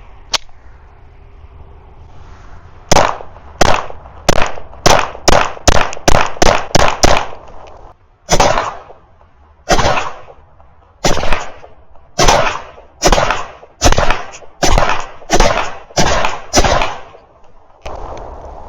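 A PSA Dagger compact 9mm pistol firing Monarch 9mm NATO rounds, about twenty shots in all: a rapid string starting about three seconds in, then slower, evenly paced shots, each ringing out with an echo.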